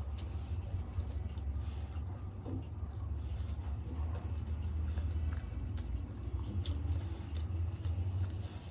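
Close-up mouth sounds of chewing dahi golgappa (yogurt-filled puffed puris), with scattered short wet clicks, over a steady low hum.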